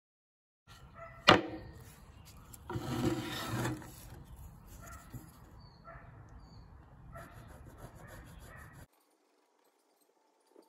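A pencil drawing around a paper template on a wooden board. There is a sharp knock about a second in and a louder stretch of rubbing around three seconds in, then lighter scratching. It cuts off suddenly near the end.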